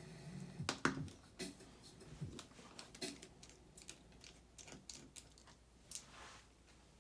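Irregular small clicks and taps of a screwdriver and loose parts handled while a 12-inch MacBook is being taken apart, the sharpest about a second in and growing sparser toward the end.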